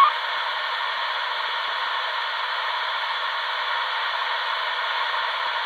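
Steady static hiss from a Midland 77-225A CB radio's small speaker, squelch open with no station on the channel. A received voice transmission cuts off right at the start.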